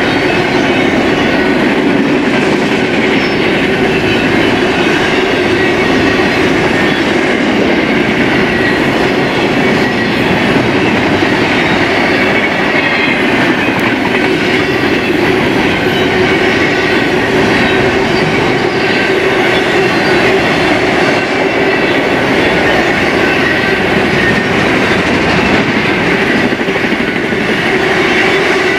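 Steel wheels of a BNSF intermodal freight train's cars rolling steadily past on the rails, loud and continuous.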